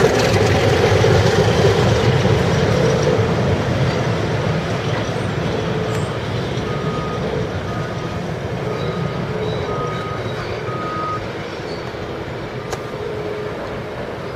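Heavy diesel locomotive engines running as the train passes close by, loudest at the start and slowly fading. From about halfway through, a run of short, high beeps sounds over the engines.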